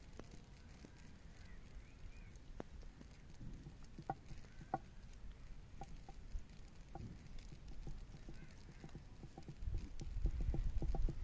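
Scattered sharp clicks and small crackles, becoming a denser, louder run of clicking and rustling about ten seconds in: fire-roasted unripe tamarind pods being handled and broken open.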